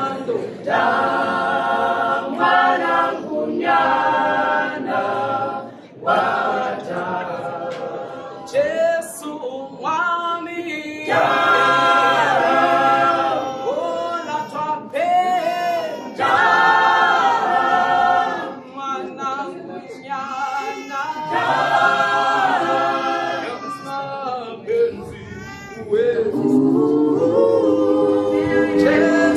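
A small mixed group of men's and women's voices singing a cappella in harmony, in phrases with short breaks between them.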